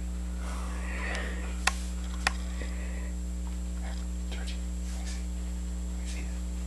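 Steady low electrical hum, with two short sharp clicks about a second and a half and two seconds in.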